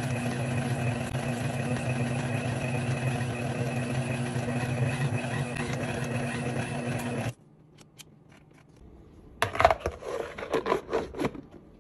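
Electric stand mixer running, with its motor humming steadily as the beater works through stiff dough. The hum cuts off suddenly about seven seconds in. After a short lull come irregular scrapes and rubs of a hand on a plastic bowl of flour.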